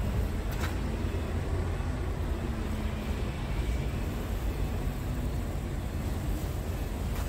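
Scania R tractor unit's diesel engine idling: a steady low rumble.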